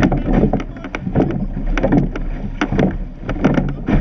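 Surf boat being rowed: the oars knock in their rowlocks and splash with each stroke, about once a second, over a steady rush of water and wind on the microphone.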